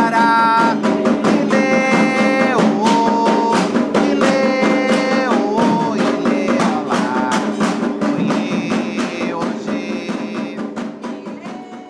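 Hymn performed to atabaque drums: steady hand-drum strokes under a melody of long held notes that glide from one to the next. It fades out over the last few seconds.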